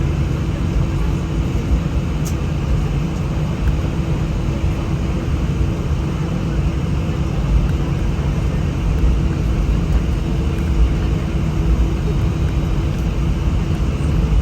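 Steady cabin noise of an Airbus A319 airliner taxiing: a low rumble with a steady hum from the jet engines at taxi power.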